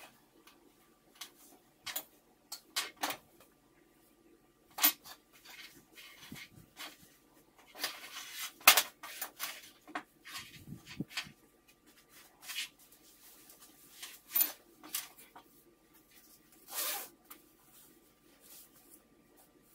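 Cotton fabric rustling and being smoothed and shifted on a table, with scattered sharp clicks and knocks between quiet gaps; the loudest handling comes a little before the middle.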